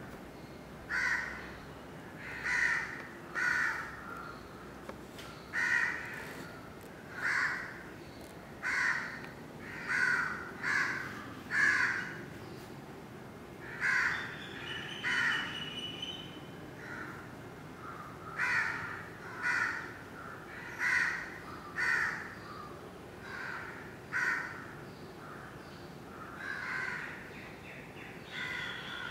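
Crows cawing over and over: short harsh caws about once a second, with brief lulls.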